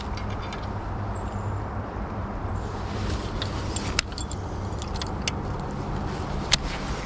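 Steady low rumble of highway traffic. A few sharp clicks sound over it as the baitcasting reel is handled.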